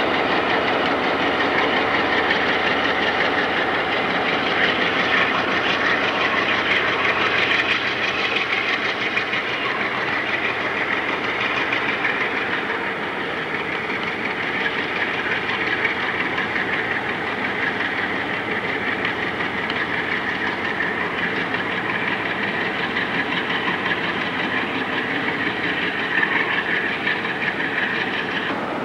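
Diesel freight locomotive working under power as it pulls a train of tank cars past, with a steady heavy noise of engine and rolling cars that eases a little partway through as the train draws away.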